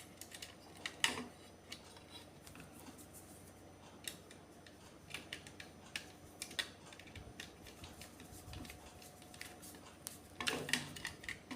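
Faint, scattered light clicks and taps of small plastic parts and wires being handled while the outlet's terminals are wired.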